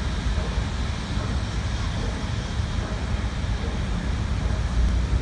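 Steady rumble of highway traffic on the overpass, with wind buffeting the microphone in the low end.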